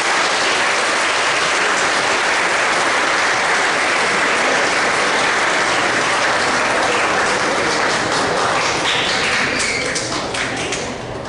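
Audience clapping in sustained applause, dying away near the end.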